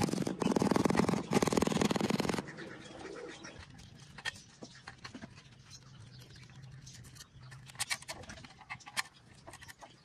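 Pigeons cooing loudly for the first couple of seconds, then a quieter stretch with scattered sharp clicks and taps.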